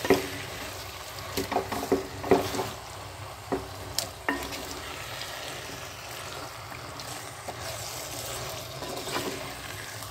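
Wooden spatula stirring chicken pieces and ground masala paste in a clay pot over the heat: a steady sizzle with scattered knocks and scrapes of the spatula against the pot, most of them in the first few seconds.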